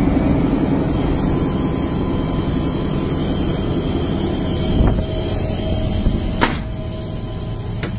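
Diesel locomotive running with a steady low rumble, heard from its cab, with a single sharp knock about six and a half seconds in.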